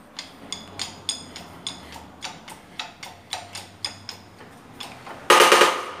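Hydraulic shop press working a wheel bearing out of a rear brake drum: a steady run of light metallic clicks, about three a second, then a loud ringing metal clang near the end.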